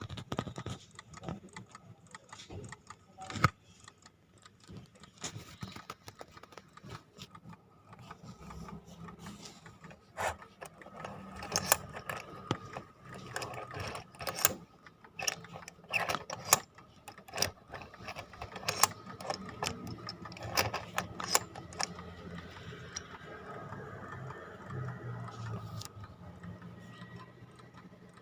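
Clockwork of a vintage wind-up tin alarm clock clicking and whirring as it is handled, with many irregular sharp clicks.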